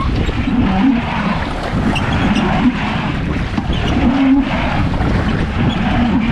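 Wind buffeting the microphone in a steady low rumble, with the waves of a choppy lake washing against a small rowing boat.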